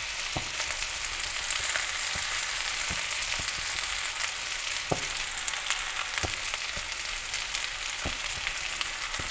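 Tandoori chicken pieces sizzling steadily as they fry in a nonstick frying pan, with a few short clicks as metal tongs lift out the green chillies and turn the chicken.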